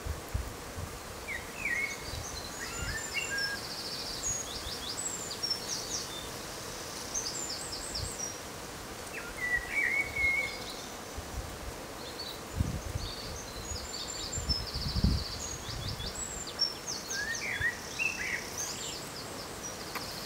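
Small songbirds singing repeated short trills and chirps over a steady outdoor background hiss, with occasional low rumbles.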